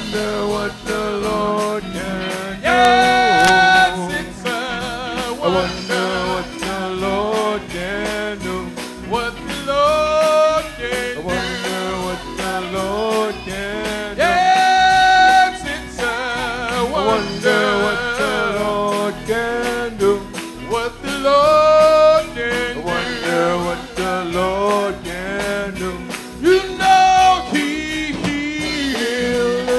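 Live gospel singing: a lead vocal with long, wavering held notes over a band with drums and a steady beat.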